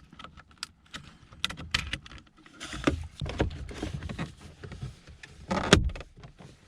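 Plastic wiring-harness connectors being pushed onto a power window master switch and clicking into place, with scattered clicks and handling rustles and one louder snap just before the end.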